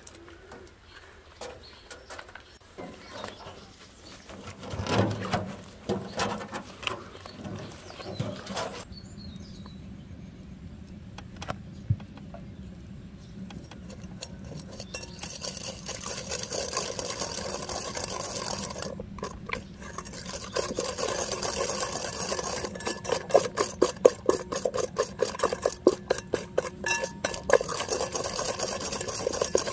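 Egg yolks and sugar being beaten by hand with a whisk in a glass bowl: a fast run of clicking strokes against the glass that grows louder in the second half.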